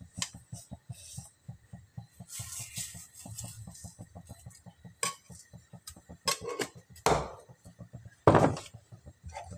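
Sugar poured from a steel container into a steel kadai, with a brief hiss of pouring granules. Then come several sharp clinks and knocks of steel utensils, the two loudest near the end.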